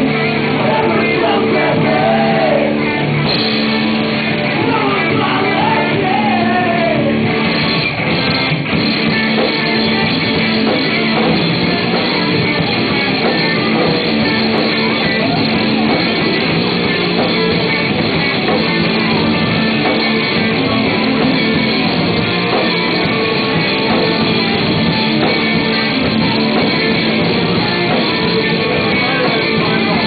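A loud live rock band playing. A sung vocal line is heard for the first several seconds, then the full band carries on as a dense, even wall of sound.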